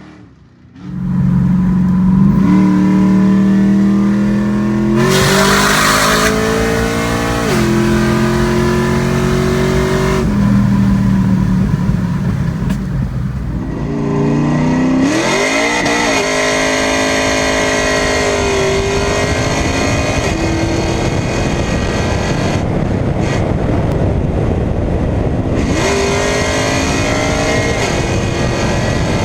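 A 5.3 L LS V8 with a large BTR LS1 Stage 3 cam, running loudly and revved up and down several times, with steady running between the revs. The sound rises sharply about a second in.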